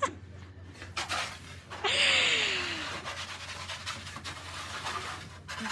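A breathy exhale with a voiced tone that slides downward, about two seconds in, after a few light knocks.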